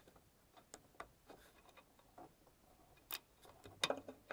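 Faint scattered clicks and handling sounds as plastic wiring-harness plug connectors are handled and pushed together, with one sharp click about three seconds in and a few more near the end.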